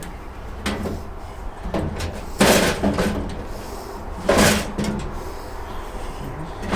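Steel tool chest clanking against the tool cart's metal frame as it is worked into place, with two loud bangs about two seconds apart and a few lighter knocks.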